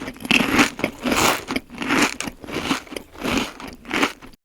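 Crunchy chewing sound effect: a crunch about every two-thirds of a second, cutting off abruptly near the end.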